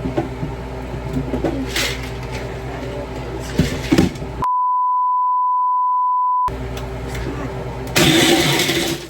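Countertop blender motor running on ice and juice, with a louder, harsher stretch of grinding about eight seconds in. About four seconds in, all sound is replaced for two seconds by a steady single-pitch censor bleep.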